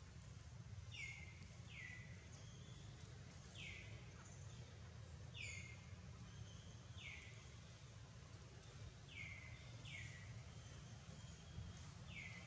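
A bird repeating a short call that slides down in pitch, about eight times, one every one to two seconds, faint over a low steady background rumble.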